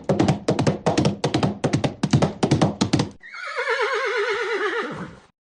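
Horse sound effects: galloping hooves in quick clattering beats for about three seconds, then a horse whinnying with a shaking, slightly falling pitch that cuts off shortly before the end.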